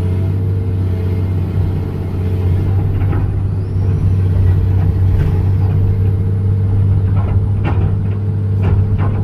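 John Deere 200LC (Hitachi EX200) excavator's diesel engine running under hydraulic load as the boom and bucket work: a steady low hum that gets louder about two and a half seconds in, with a few sharp knocks near the end.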